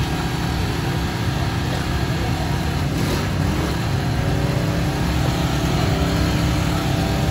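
Small portable generator's engine running steadily with a low drone.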